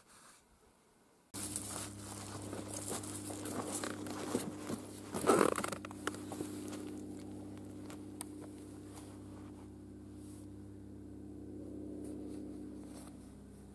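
Close rustling and crinkling of clothing and gear as a seated man shifts about. It starts suddenly about a second in, is loudest about five seconds in, then gives way to a low steady hum.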